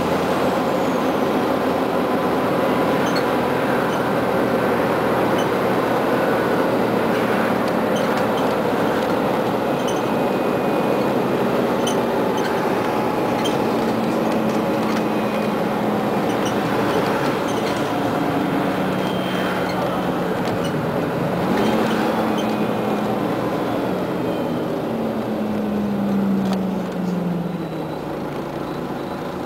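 Cabin noise of a Scania CN94UA OmniCity articulated city bus on the move: steady engine and road noise. Over the last few seconds the engine note falls and the noise drops as the bus slows.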